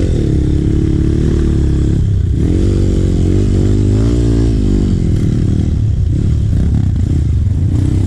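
Trail motorcycle engine running while riding, its pitch rising and falling several times as the throttle is worked, over a heavy low rumble.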